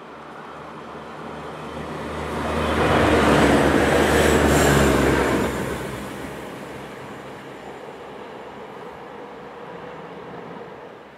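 Diesel multiple unit passing at speed on snow-covered track. Engine and running noise swell to a peak about three to five seconds in as it goes by, then fade as it runs away.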